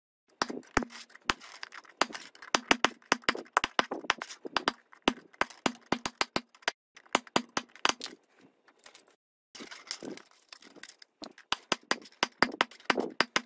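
Steel claw hammer tapping a small metal pin into the edge of a 3D-printed plastic tile: a rapid series of sharp strikes, about three or four a second, with a brief pause about nine seconds in.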